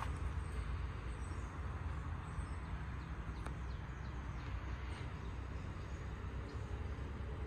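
Birds chirping faintly outdoors in short scattered calls, over a steady low rumble, with an occasional single click.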